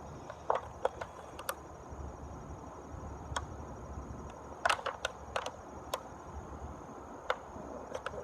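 Irregular light clicks and crinkles of a plastic water bottle being handled and marked, a few sharper taps a little under five seconds in. Over them runs a steady high insect drone, like crickets.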